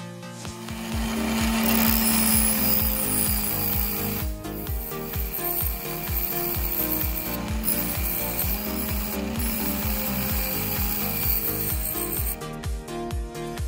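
Angle grinder running with a thin metal rod held against its spinning abrasive disc, grinding the rod and throwing sparks; the grinding noise stops suddenly near the end. Electronic dance music with a steady beat plays underneath.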